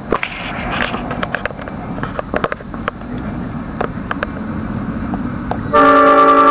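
A locomotive's Nathan Airchime P5 five-chime horn sounds a loud held chord that starts suddenly near the end. Before it there is only rumbling noise with scattered clicks.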